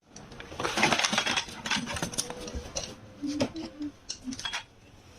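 Scrap parts being handled, with many clicks, knocks and metallic clinks, busiest about a second in. A faint voice is heard briefly past the middle.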